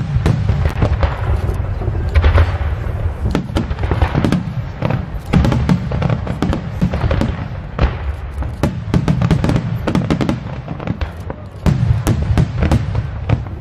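Aerial fireworks shells bursting in quick succession: many overlapping sharp bangs over a continuous low rumble.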